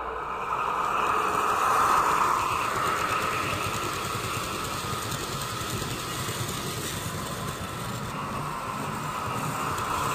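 HO-scale model of the VT 11.5 TEE diesel train running along the track: a steady whir from its small electric motor and rolling wheels, loudest about two seconds in.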